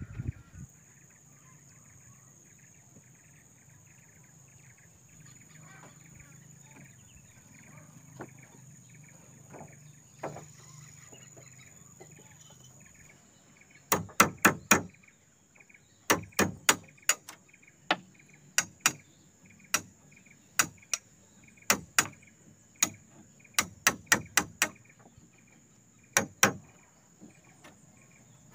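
Insects drone steadily against forest ambience. About halfway in, a tool starts striking wood: a quick run of sharp knocks, then single knocks roughly once a second.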